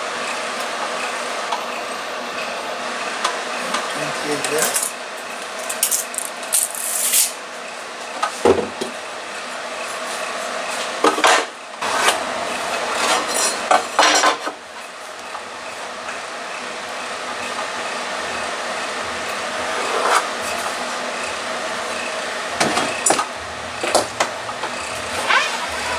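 Hand tools being handled on a pine board: a tape measure, a pencil and a metal square set down and slid over the wood, giving scattered clicks, scrapes and rubs over a steady background hum.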